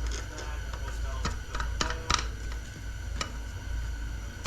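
Steel transmission parts being handled: a few sharp metallic clicks and clinks, some with a brief ring, over a steady low hum.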